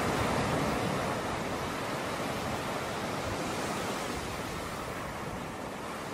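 Waves washing onto the shore: a steady rushing that swells at the start and slowly eases.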